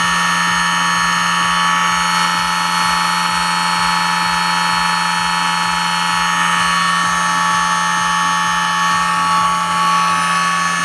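Brushless motor on a dyno bench, driven by a Castle ICE2 HV160 speed controller at 50% throttle and about 40 A, spinning a second motor as its load. It gives a steady, high-pitched electric whine of several held tones.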